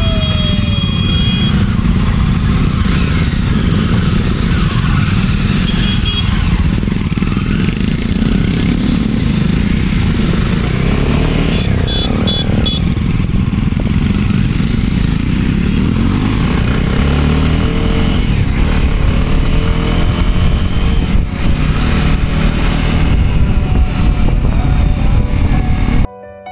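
Jawa motorcycles running under way, the engine rising in pitch through the gears several times over a heavy rush of wind on the microphone. A few short high beeps sound, once near the start and again about twelve seconds in.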